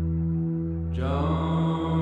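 Slow ambient music: a sustained low drone, joined about a second in by a deep male voice singing one long held note, the opening of the song's first line.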